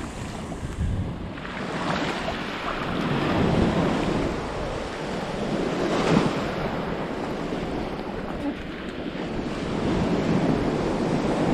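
Baltic Sea surf breaking and washing up the beach, its level rising and falling as the waves come in, with wind buffeting the microphone.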